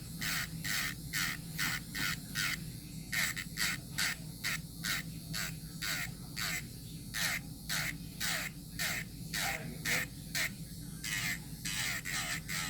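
ECBASKET 30,000 RPM electric nail drill running with a steady low hum while its bit grinds gel polish off a nail in short, repeated strokes, about two to three a second. Each stroke dips in pitch as the bit bites.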